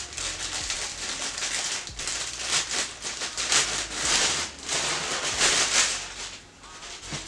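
Clear plastic clothing bag crinkling and rustling in irregular bursts as it is opened and a garment is pulled out, quieter near the end.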